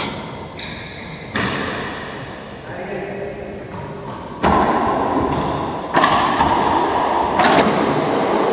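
Racquetball rally: sharp smacks of the ball off racquets and the court walls, ringing in the enclosed court. A couple of lighter hits come in the first half, then three loud ones about a second and a half apart in the second half.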